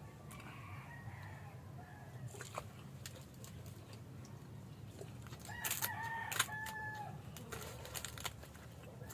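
A rooster crowing: one clear crow about a second and a half long around the middle, with fainter calls near the start. Scattered short clicks from eating run under it.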